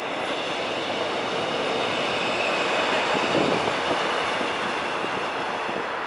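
Passenger train passing on the rails: a steady running noise of wheels on track, with a faint high whine held over it.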